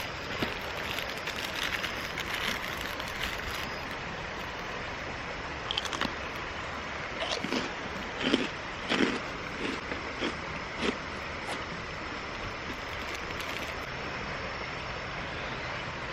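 Steady rushing of a mountain stream, with a run of short knocks and crunches in the middle, about a dozen over five seconds.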